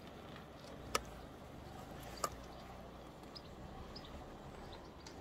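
Two short sharp clicks, the first about a second in and the second about a second later, over a low steady background, with a few fainter ticks after them.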